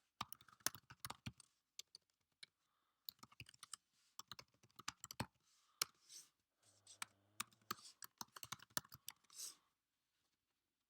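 Faint typing on a computer keyboard: several quick runs of keystrokes with short pauses between them, ending about nine and a half seconds in.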